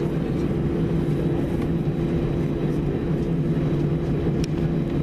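Airbus A320 jet engines heard from inside the cabin: a steady hum with two constant low tones, as the airliner rolls slowly on the ground at low power.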